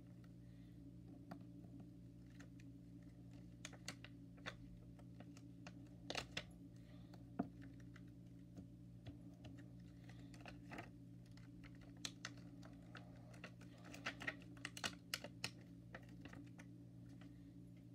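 Soft, irregular clicks and taps of long fingernails on a plastic-backed sheet of dot stickers as stickers are peeled off and pressed onto a notebook cover, in small clusters. A low steady hum underneath.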